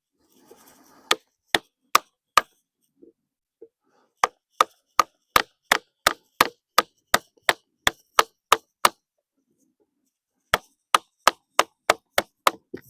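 Wooden mallet blows driving a chisel into a timber-frame log joint: sharp strikes in three runs, about four, then a steady run of about fourteen at roughly two and a half a second, then about eight more, with faint scraping of the chisel between.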